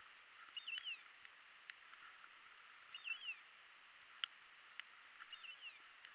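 Faint electronic call from a bird dog's beeper collar repeating at an even pace about every two and a half seconds, each a short warbling chirp followed by a falling note. A few light clicks and grass rustles come between the calls.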